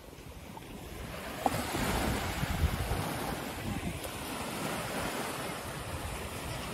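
Small waves breaking and washing up a sandy beach, swelling louder over the first second or two, with wind rumbling on the microphone underneath.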